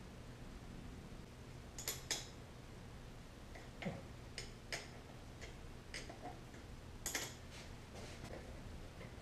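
Irregular light clicks and taps of hands and tools working on a Honda CT90's carburetor and intake during carburetor removal, with a double click about two seconds in and the loudest a double tap about seven seconds in.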